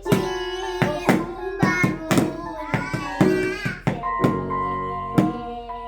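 Music: a child singing with sharp percussive hits and some held instrument notes.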